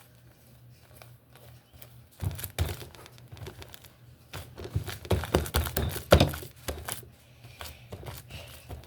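Homemade glue-and-shaving-cream slime being mixed and kneaded by hand, giving off irregular sticky clicks and crackles, loudest about two-thirds of the way through.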